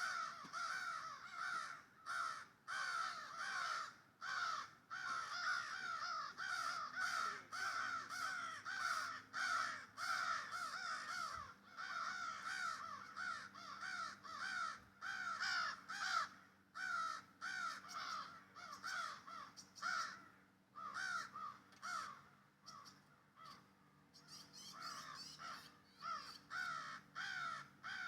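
A baby bird calling over and over: an unbroken series of short calls, each sliding down in pitch, several a second.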